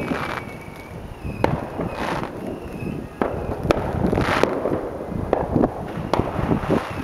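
Aerial firework shells bursting at a distance: a run of irregular sharp bangs, with a hissing crackle from the bursts in between.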